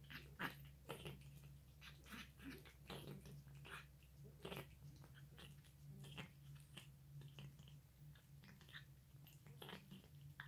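A cat chewing and biting its food, a run of faint irregular clicks several times a second, over a steady low hum.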